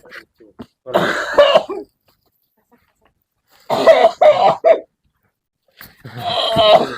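A person coughing hard in three rough bouts: one about a second in, one near the middle and one near the end.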